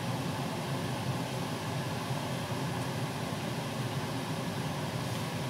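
A steady, even hiss with a low hum under it, from a frying pan of vegetables and shrimp cooking over a gas burner.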